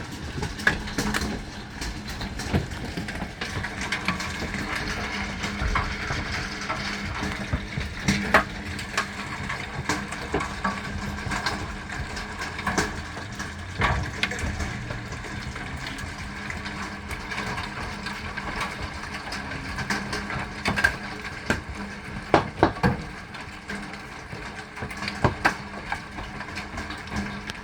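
Large hailstones pelting down, a continuous clatter of irregular impacts with frequent loud, sharp strikes standing out.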